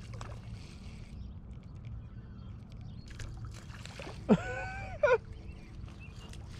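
Goose honking: a brief rising honk just after the start, then a louder drawn-out honk about four seconds in that breaks off just after five seconds.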